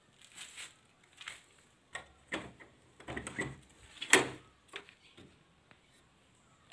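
A wooden door being opened by hand, a run of knocks and rattles with the loudest knock about four seconds in.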